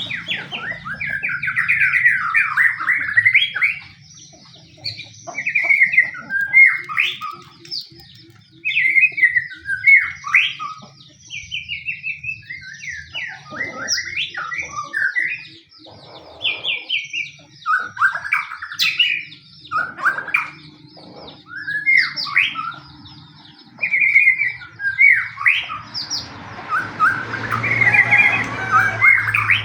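White-rumped shama singing in fast, varied phrases of whistled sweeps, trills and chattering notes, with short pauses between phrases. This is the aggressive fighting song used as a lure recording to set other shamas singing.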